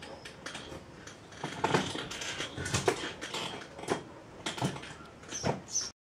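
Small birds calling from the stone eaves: a string of short, sharp chirps about a second apart, with a couple of high thin chirps near the end.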